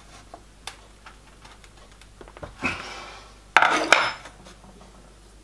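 Light clicks and a soft scrape of a steel bar worked in a V-block, bending annealed copper strip. Then, a little after halfway, a loud metallic clatter with a brief ring as the steel bar is set down on the bench.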